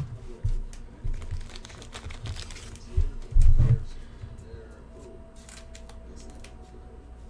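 Plastic card sleeves and a trading card being handled: light plastic rustling and small clicks. A couple of dull thumps about three seconds in.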